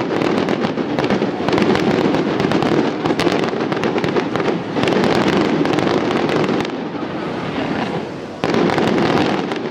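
Fireworks display: a dense, continuous barrage of bangs and rapid crackling, easing a little before a sudden loud burst about eight seconds in.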